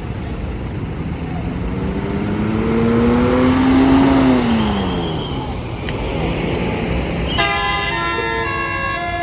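A bus passes, its engine note rising and then falling. About seven seconds in, a basuri telolet horn set starts abruptly, sounding several steady notes at once.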